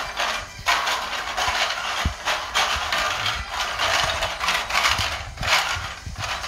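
Plastic toy vegetable pieces clattering against each other and the glass bowl as a hand rummages through them, an irregular rattling that keeps on with a brief pause near the start.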